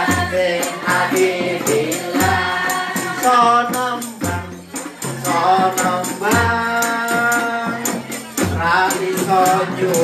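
A song with a backing track played through a hall's PA: singing over a steady ticking percussion beat, with a low bass note about every two seconds.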